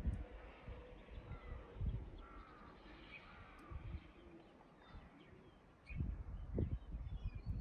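Birds calling and chirping faintly over a snowy outdoor scene, with gusts of wind rumbling on the microphone, heaviest in the last couple of seconds.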